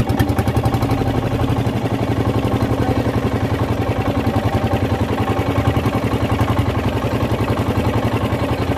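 A fishing boat's small engine running steadily after being pull-started, with an even, rapid putter. It has been hard to start, which the fishermen put down to moisture in the fuel tank.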